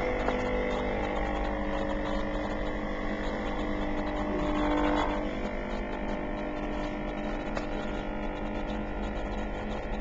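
Capsule coffee machine's pump running with a steady hum while it brews, swelling a little about five seconds in; by the end coffee is starting to pour into the cup.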